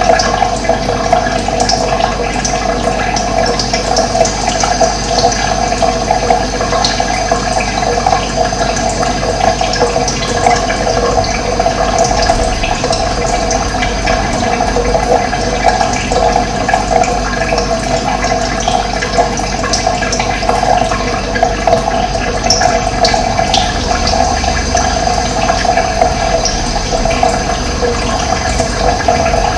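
Running water flowing steadily.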